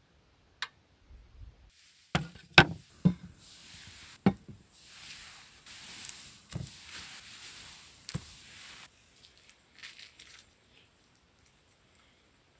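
Handling sounds of steamed buns being served: a quick run of sharp knocks and clacks on wood and metal about two seconds in, then several seconds of soft rustling with a couple more single knocks.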